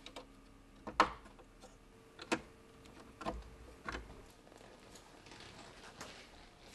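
Sharp plastic clicks and knocks, about four of them with the loudest about a second in, as the grey plastic housing of a Blum SERVO-DRIVE drive unit is handled and clipped on. A soft rustle follows near the end.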